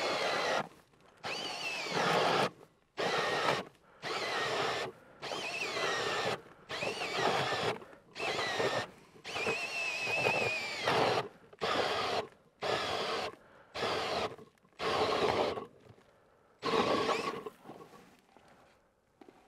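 Cordless Makita drill driving an ice auger through lake ice, run in about a dozen short bursts of a second or so with brief pauses between, its motor whine rising and falling with each burst.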